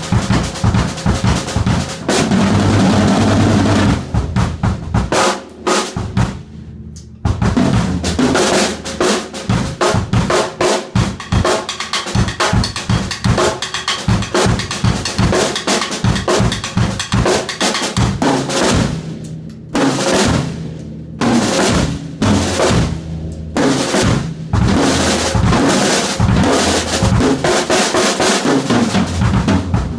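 Yamaha Stage Custom drum kit played in a room, with steady grooves and fills across kick, toms, snare and cymbals, broken by a few brief pauses.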